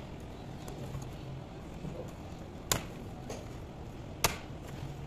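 Two sharp clicks about a second and a half apart as the metal keyboard plate of a laptop is handled during disassembly, over a steady low background hum.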